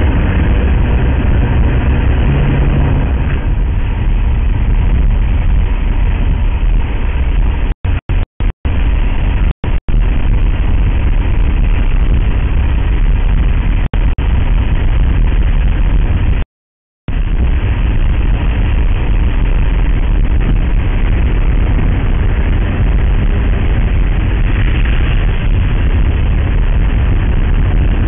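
Steady road noise of a moving car heard from inside the cabin: a low rumble of engine and tyres. It drops out to silence a few times about eight to ten seconds in, and again for about half a second at seventeen seconds.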